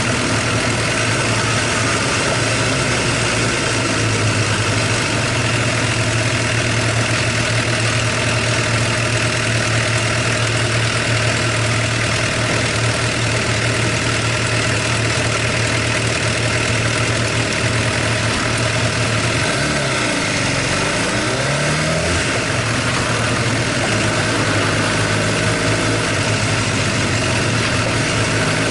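Suzuki GSX-R750 inline-four engine idling steadily, with a brief wobble in engine pitch about twenty seconds in. It carries the abnormal engine noise that the owner takes for tappet noise, loud until the engine is fully warmed up, and which he fears means an engine overhaul is due.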